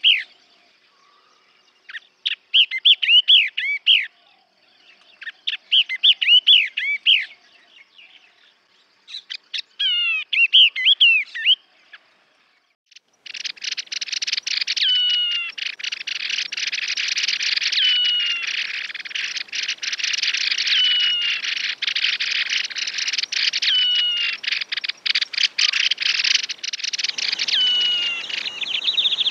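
Yellow-eyed babbler song played as a lure call: short phrases of rapid, warbled notes, repeated with brief pauses. About halfway through it gives way to a dense, continuous scratchy chatter with a clear falling whistle about every three seconds.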